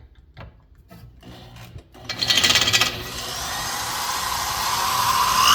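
Electric drill starting about two seconds in and boring through a metal rivet holding a fan blade to its hub, with a sharp grinding bite at first and then a steady run with a motor whine that rises slightly near the end. A few light handling clicks come before it.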